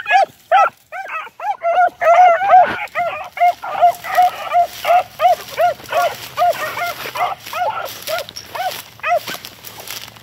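Two beagles barking on a rabbit's trail: short, high barks about two to three a second, their voices overlapping for a few seconds before they thin out and stop near the end.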